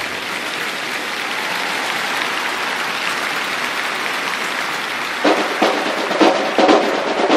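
Crowd applauding. About five seconds in, marching snare drums start up over it with sharp, rhythmic strokes.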